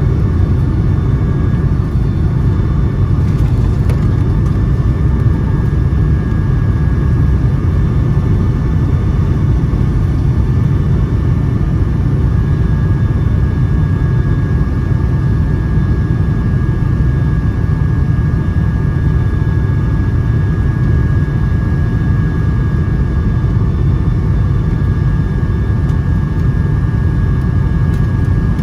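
Steady low rumble of a Boeing 757-200's jet engines and rushing air heard inside the passenger cabin, with a faint steady whine on top.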